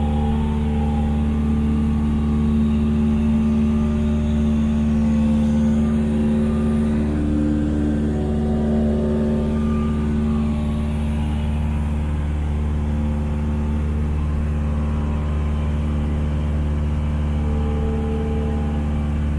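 Cessna 172's piston engine and propeller droning steadily in cruise flight, heard from inside the cabin.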